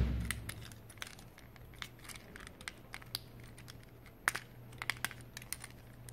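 Hard plastic parts of a Transformers Bumblebee toy clicking and snapping as it is folded by hand into its car form: scattered light clicks, the loudest one about four seconds in.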